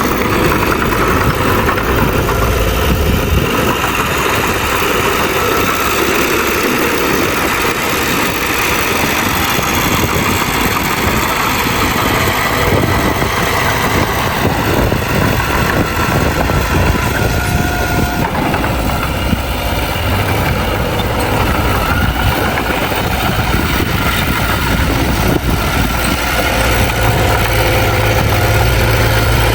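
Heavy diesel earthmoving machinery, a bulldozer working with dump trucks, running steadily with a deep engine rumble. The low rumble grows stronger near the end.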